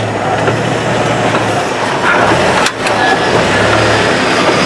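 Engine of a lifted Jeep running steadily at low revs as it crawls over a boulder, heard from directly underneath the vehicle, with a low hum.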